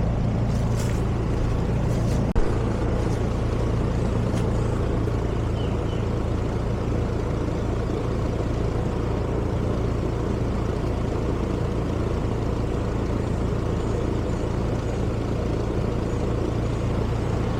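Central air conditioner's outdoor condensing unit running steadily: compressor hum and condenser fan, with a single short knock about two seconds in.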